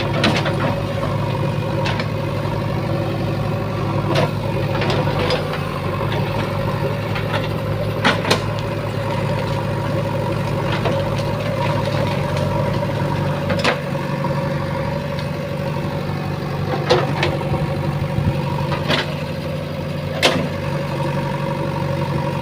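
JCB 3DX backhoe loader's diesel engine running steadily, with sharp knocks every few seconds, about nine in all.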